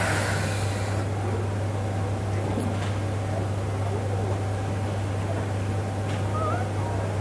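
A steady low mechanical hum with an even hiss and a faint steady higher tone, unchanging throughout, with a brief hissing rustle at the very start.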